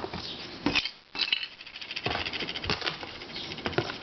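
A pile of small keychain puzzles and buttons clinking and rattling against each other as they are handled: an irregular run of light clicks.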